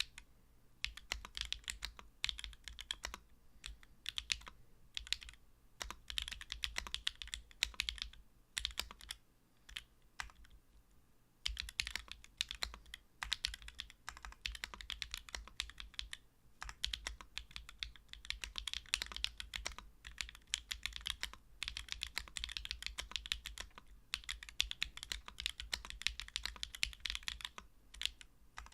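Typing on a mechanical keyboard: Sui Xiin Studio Zi Yuan switches in a leaf-spring gasket-mounted PC Kohaku with an aluminum plate, no foam, Durock V2 stabilizers and GMK Nimbus keycaps. It is fast typing in bursts, with short pauses and a longer lull about nine to eleven seconds in.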